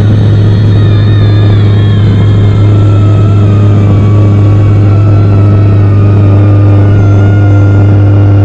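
Vehicle driving on the highway: a loud, steady low engine drone, with fainter higher tones that slowly drift in pitch.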